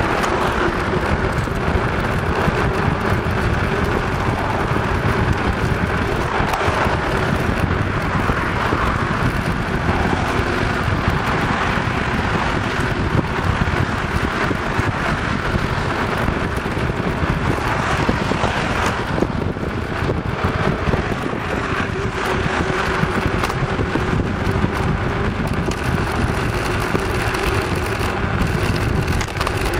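Bicycle tyres rolling on a paved cycle path with a steady hum, mixed with wind noise on the microphone and car traffic on the road alongside.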